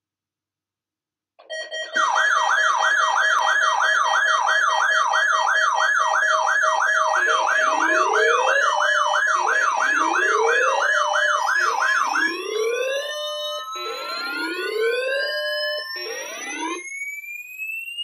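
Several weather alert radios sounding their alarms at once, starting about a second and a half in. A fast warbling tone wavers about two and a half times a second over steady beeping tones. Repeating rising whoops join partway through, and after the warble stops a single long tone climbs slowly toward the end.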